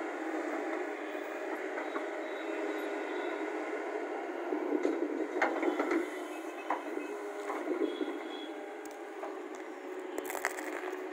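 Heavy construction machine's engine running steadily, with a cluster of knocks and scrapes about five seconds in and a few more near the end.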